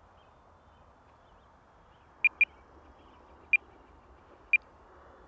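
Radio-control transmitter beeping: four short, high electronic beeps, a quick pair about two seconds in, then two single beeps about a second apart, over a faint steady hiss.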